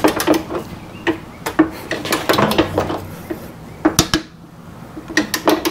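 Ratcheting torque wrench tightening the steel bumper's bolts: sharp metallic clicks and clinks in uneven bunches.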